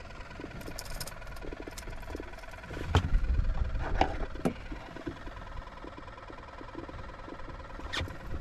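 Wind rumbling on the microphone, with a few sharp knocks about three and four seconds in and another near the end.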